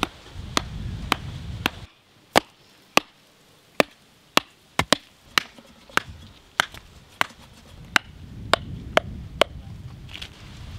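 A hammer striking the tops of green bamboo stakes, driving them into hard, dry ground. The blows are sharp and uneven in spacing, about two a second, some twenty in all.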